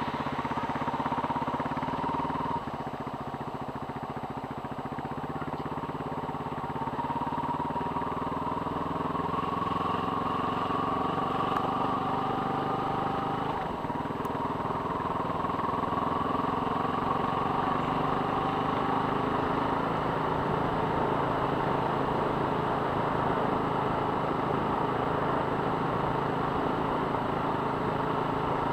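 Engine of a vehicle running steadily as it drives along a gravel road, with road and tyre noise underneath.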